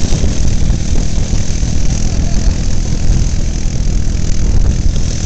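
ATV engine idling steadily at low revs, with a constant hiss over it.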